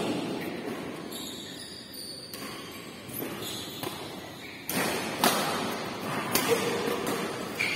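Badminton rackets striking a shuttlecock in a rally, several sharp cracks in the second half, the loudest about halfway through, ringing in a large hall.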